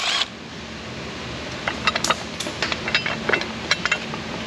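Scattered light clicks and clinks of small metal fasteners and hand tools being handled on an engine, thickest in the second half, over a steady low hum.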